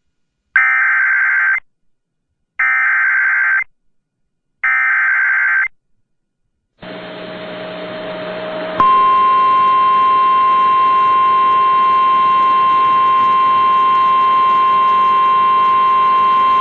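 Emergency Alert System SAME header: three short bursts of screechy digital data tones about two seconds apart. Radio static then rises, and about nine seconds in the steady single-pitch NOAA Weather Radio alert tone sounds, announcing a severe thunderstorm warning.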